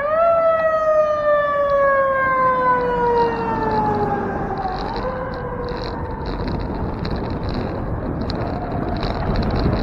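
Fire engine siren wailing. It rises quickly, then falls slowly in pitch for several seconds, gives a shorter rise and fall about five seconds in, and fades under steady wind and road noise.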